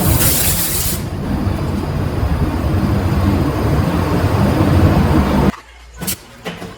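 A machine running steadily with a low hum, with a burst of air hissing during the first second. About five and a half seconds in it cuts off abruptly, leaving a quieter background with a few sharp clicks.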